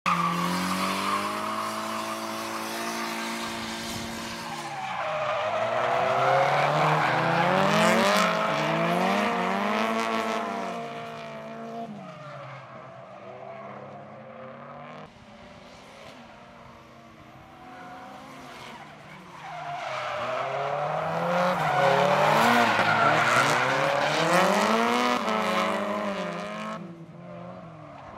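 Two drift cars sliding in tandem: their engines rev up and down again and again as the throttle is worked, over the screech of tyres spinning and sliding. It swells twice as the pair comes close, first from about five to twelve seconds in and again from about twenty to twenty-six seconds in.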